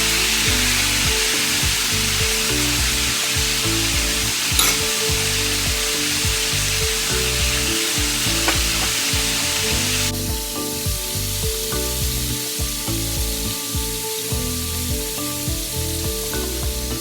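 Chicken pieces frying in a skillet of hot oil: a steady sizzle with soft background music under it. About ten seconds in, the sizzle drops suddenly to a quieter level.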